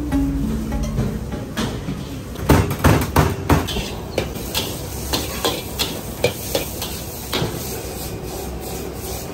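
Metal wok spatula clanking and scraping against a wok while fried rice is stir-fried over a gas flame: a quick run of sharp clanks, loudest a few seconds in, thinning out toward the end.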